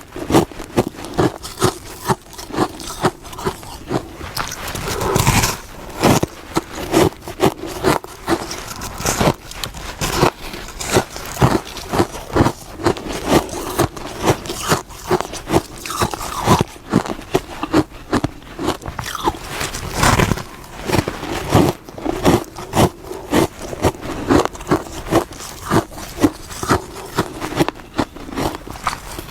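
Close-miked biting and chewing of hard frost, a rapid run of crisp crunches several times a second.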